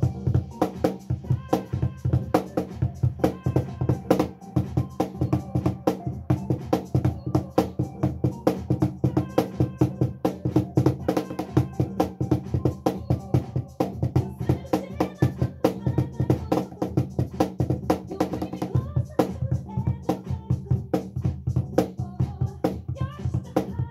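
Gecko cajon played by hand in a steady beat, over a recorded dance-pop song with bass and a woman singing.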